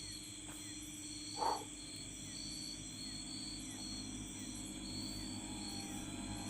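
Night insects chirping in a steady high pulse, about twice a second, over a low steady hum. About a second and a half in comes one short, louder call or cry.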